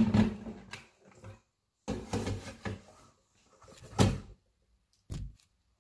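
Kitchen handling knocks and clatters, the loudest at the very start. About four seconds in comes a sharp click as the lid of a stainless-steel rice cooker pops open.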